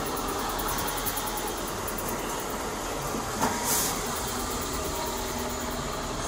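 Steady street traffic noise beside a road. About three and a half seconds in there is a short click, followed by a brief hiss.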